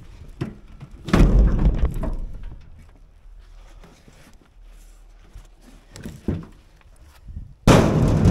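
Heavy thunks of firewood rounds being handled at a loaded wheelbarrow: one about a second in that dies away over a second, another near the end, with light knocks and shuffling between.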